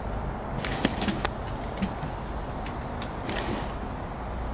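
Steady low outdoor background rumble, with a few light clicks about a second in and again a little past three seconds.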